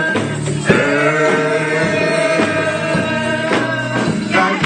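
Live gospel band playing: a walking bass line under sustained chords, with a new chord struck about a second in.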